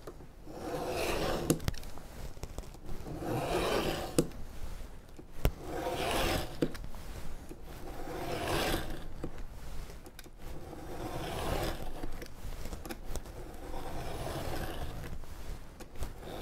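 Utility knife blade scraping through thick binder's board along a straightedge in about six slow, pressured strokes a couple of seconds apart, scoring deeper with each pass.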